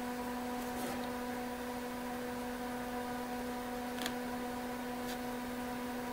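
Tektronix TDS 340 oscilloscope's cooling fan running with a steady hum, with a few faint clicks from its front-panel buttons being pressed.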